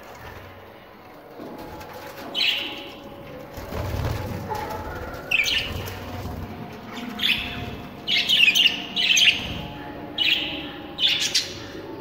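Budgerigars chirping: short, sharp calls every second or two, several in quick succession in the last few seconds.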